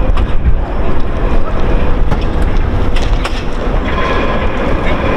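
Fire engines running with a steady low rumble, with a few sharp knocks as hoses and couplings are handled on the pavement.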